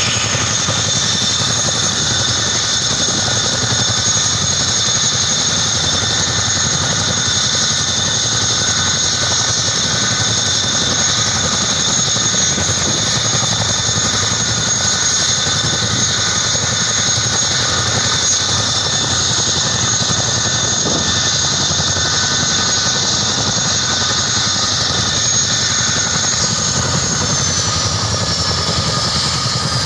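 Boeing CH-47 Chinook tandem-rotor helicopter running on the ground with its rotors turning: steady high turbine whine from its twin turboshaft engines over a rumbling rotor noise. Near the end, one high whine tone begins to drop in pitch.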